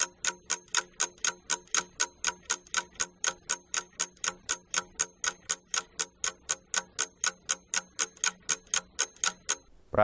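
Ticking clock sound effect, about four even ticks a second, counting down the time to answer a quiz question; it stops just before the end.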